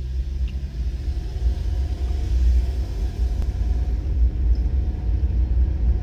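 Low rumble of a Suzuki Grand Vitara heard from inside the cabin as it pulls away from a stop and gathers speed, growing slightly louder.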